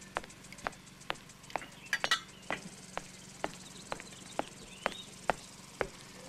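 A man's footsteps striding on asphalt, brisk and even, about two steps a second.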